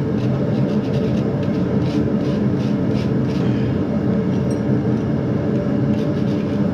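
Gas forge burner running steadily, with a wire brush scraping over the hot forged steel leaf in a run of quick scratchy strokes through the first half or so.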